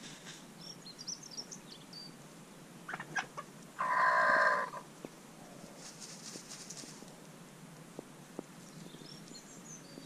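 A chicken gives one loud call lasting about a second, midway through, with faint high chirps of small birds before and after it.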